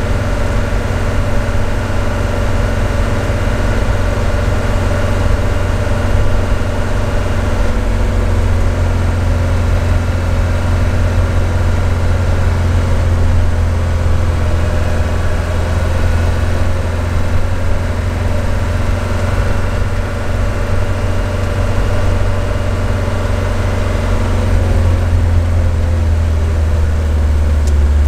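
Diesel engine of a 1977 Mercedes 206D (Hanomag-Henschel) van running steadily while driving, heard from inside the cab as a deep, even drone. The low drone grows louder near the end.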